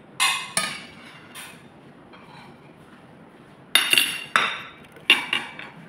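Metal spoon and fork clinking against plates while sauce is served: a few sharp clinks in the first second and a half, then a louder cluster of clinks about four seconds in and another a little after five seconds.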